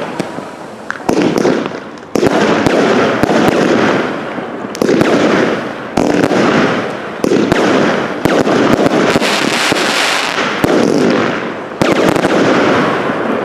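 A barrage of aerial firework shells bursting in quick succession, roughly one loud bang a second, each followed by a dense crackle that fades before the next burst.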